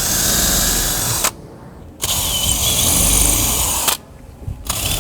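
Electric drill boring pilot holes into crate wood, running in three bursts that stop briefly about a second in and again near the end before starting up once more.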